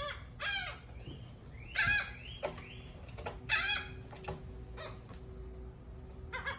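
Gulls calling among a flock at a feeding: about five short, harsh, pitched calls, the loudest about two seconds and three and a half seconds in.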